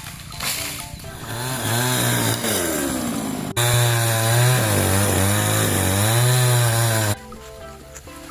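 Chainsaw cutting into a tree, its engine pitch dipping and rising as it bites into the wood, louder after an abrupt jump a few seconds in, then cutting off suddenly near the end. Background music underneath.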